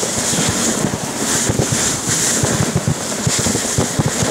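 Dog sled travelling over glacier snow: wind buffeting the microphone over a steady high hiss, with many irregular soft low thumps.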